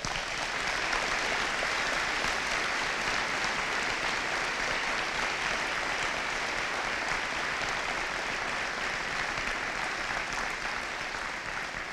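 Audience applauding steadily, a dense crowd of clapping hands that eases off slightly near the end.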